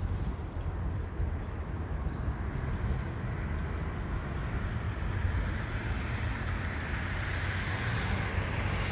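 City street ambience with traffic: a steady low rumble, and the noise of a passing vehicle growing louder towards the end.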